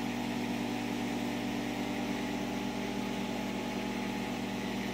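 A 1500-watt microwave oven running on high: a steady hum.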